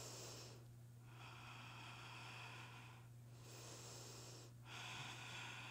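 Faint, slow breaths drawn in and out through the nose: soft hissing strokes of a second or more each with short pauses between, about two full in-and-out breaths. A steady low hum sits underneath.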